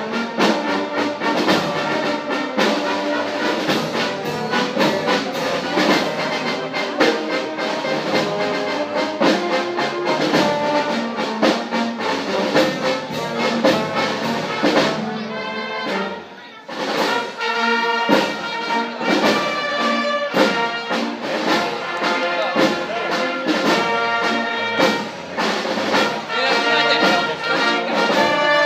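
Brass band playing in the street: trumpets and trombones over a steady beat, with a short break a little past halfway before the music picks up again.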